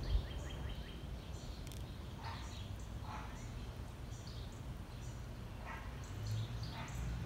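Outdoor backyard ambience: small birds chirping repeatedly in the background over a steady low rumble.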